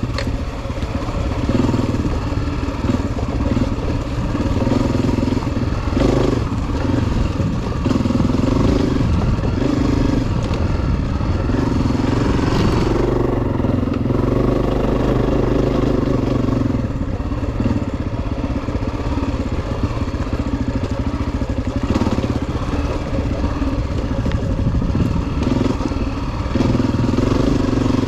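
Honda CRF250F dirt bike's single-cylinder four-stroke engine running under way on a trail, its pitch rising and falling as the throttle opens and closes, with scattered clicks and knocks.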